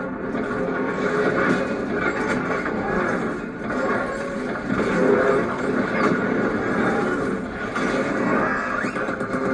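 Train crash sound effect: a dense, continuous rumbling noise with no pauses, swelling and easing every second or so.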